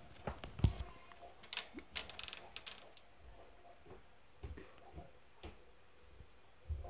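Light, irregular clicks and rustles of movement in a wire pet-rat cage and its fabric hammock, with a quick run of ticks about two seconds in.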